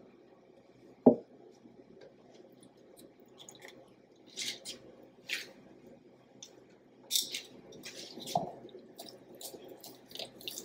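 A single knock about a second in, then wet, squishy strokes of a wire whisk stirring a thick powdered-sugar glaze in a glass measuring cup, irregular at first and more frequent near the end.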